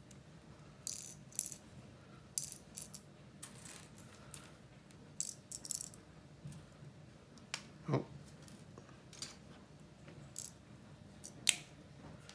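Plastic LEGO bricks clicking and rattling as they are handled and pressed together: a string of irregular, sharp little clicks, the loudest one near the end.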